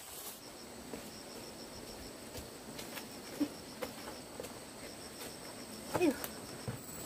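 A cricket-like insect chirping in a rapid, even train of faint high pulses, with scattered light steps and rustles in the undergrowth. A short louder sound comes about six seconds in.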